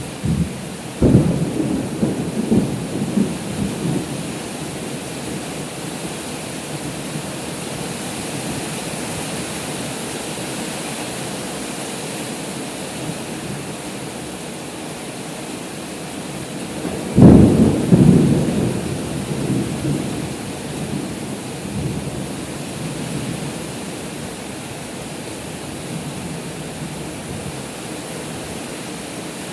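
Heavy rain pouring steadily with two claps of thunder: one about a second in that rumbles for a few seconds, and a louder one about 17 seconds in that rumbles on for several seconds.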